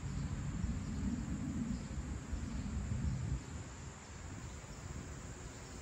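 Insects buzzing in a steady, high, even tone over a low rumble that falls away about halfway through.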